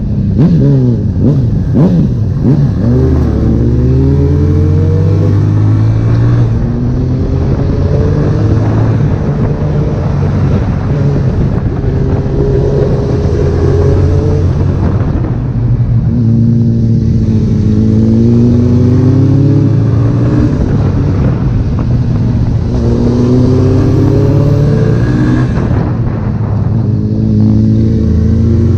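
Honda CB1000R inline-four engine under acceleration, its pitch climbing and then dropping back several times as the rider shifts up through the gears, with wind noise over the top.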